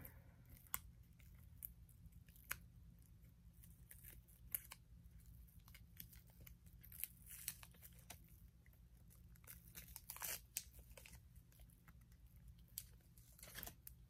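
Near silence with faint scattered clicks and crinkles from press-on nails and plastic adhesive-tab backing being handled between the fingers, a little louder about ten seconds in and again near the end.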